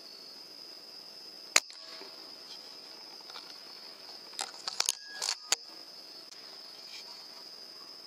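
Night insects chirring steadily at a high pitch. There is one sharp, loud crack about one and a half seconds in, and a few softer clicks around five seconds.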